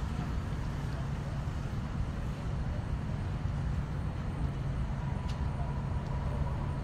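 Steady low rumble of distant traffic with a constant engine-like hum, and a faint steady higher tone joining about five seconds in.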